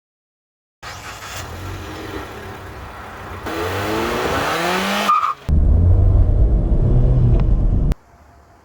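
Car engine accelerating, its pitch rising over a couple of seconds. After a brief break comes a louder, low rumble that cuts off abruptly near the end.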